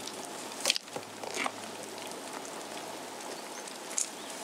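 Steady hiss of light rain with a few short, sharp taps, the loudest about two-thirds of a second in.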